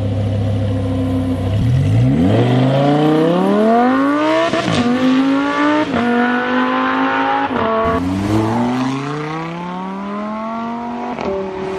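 Engine sound of a toy police jeep: a low idle, then two revs that each climb in pitch and level off, with a few sharp clicks between them.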